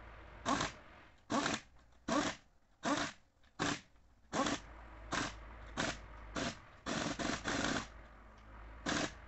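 A pneumatic tool on an air hose, triggered in a dozen or so short bursts at a fairly even pace, with a pause near the end.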